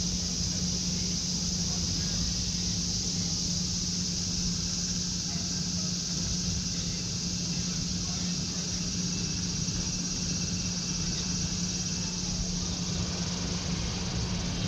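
Steady high-pitched insect drone over a steady low hum. From about the middle a faint thin whine joins it as the electric locomotive comes slowly out of the tunnel; the train adds no clear rise in loudness.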